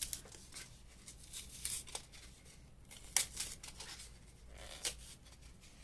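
Thick paper backing being peeled and torn off a decorated tag by hand: intermittent rustling and ripping, with a sharp rip about three seconds in.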